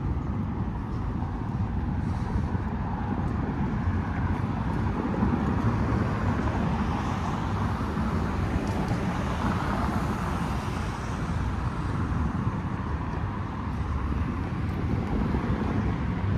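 Steady outdoor city-street ambience dominated by road traffic, with a continuous low rumble and no distinct single events.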